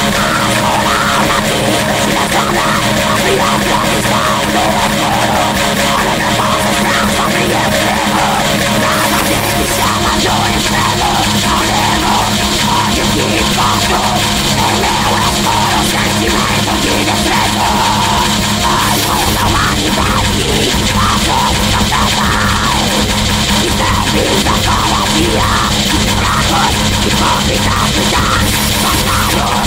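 Black metal recording: loud, dense distorted guitars and drums playing without a break.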